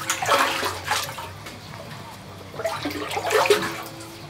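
Onion being peeled and trimmed with a knife: the dry papery skin crackling and rustling in two bursts, near the start and about three seconds in.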